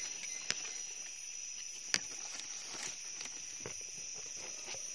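A steady high-pitched insect drone, with scattered light crackles and clicks, the sharpest about half a second and two seconds in.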